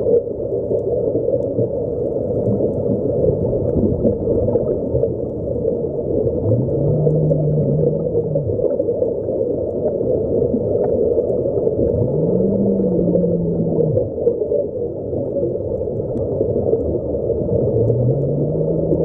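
Muffled underwater bubbling and rushing from air-fed sea-walk helmets. Three times, about six seconds apart, a low hum rises, holds for a second or two and falls away.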